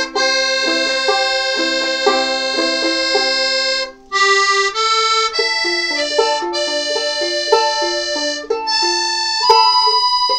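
Piano accordion and banjolele playing a tune together: the accordion holds sustained chords and melody while the banjolele strums. The music drops out briefly about four seconds in, then carries on.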